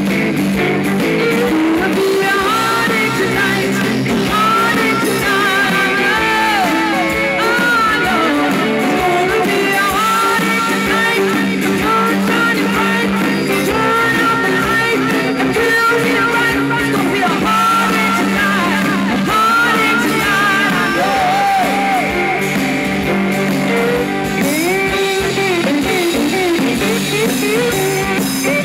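Live rock band playing an instrumental break with no vocals: a fiddle plays a sliding lead line over electric guitars, bass and drums.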